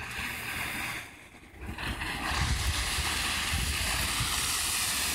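A car running on a snowy lot and driving up close, its engine and tyres rumbling low. From about two seconds in the sound swells into a loud, steady hiss.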